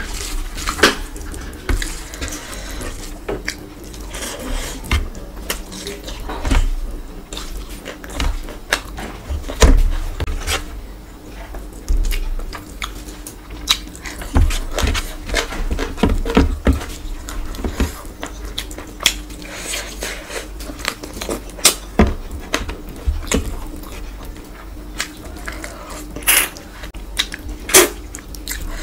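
Close-up eating sounds: a bare hand squelching and mixing rice with curry gravy on a metal tray, alongside wet chewing and mouth smacks. These come as many short, irregular clicks and smacks.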